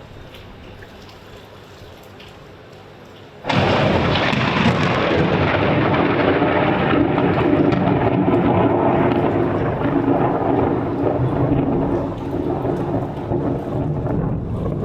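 Rain falling, then about three and a half seconds in a sudden loud thunderclap that rolls on as a long rumble, slowly easing.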